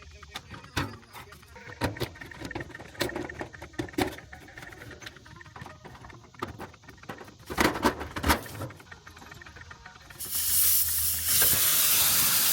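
Scattered metal clanks and taps of tools as an old air-conditioning condenser's gauge hoses and lines are taken apart, then a loud steady hiss of gas lasting about two seconds near the end, stopping abruptly.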